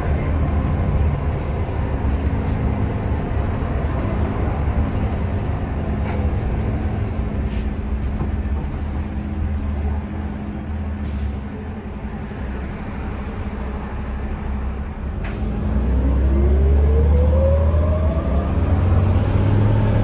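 A 2006 NABI 40-LFW transit bus heard from inside, its Cummins Westport C Gas Plus CNG engine and Allison B400R automatic transmission running as it drives, with a steady low rumble. About three-quarters of the way through, the bus pulls away harder: the running gets louder and a whine rises steadily in pitch to the end.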